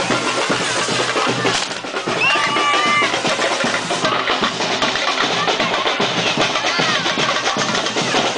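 Drums beating a fast, continuous rhythm over the steady hiss and crackle of fireworks fountains spraying sparks.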